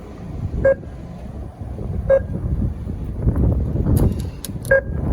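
Low rumbling noise, with three short beeps spaced a second and a half to two and a half seconds apart and a few sharp clicks near the end.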